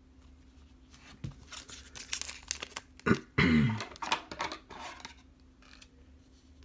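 Plastic packaging crinkling and tearing in quick, irregular rustles as card packs are handled, dying away about five seconds in.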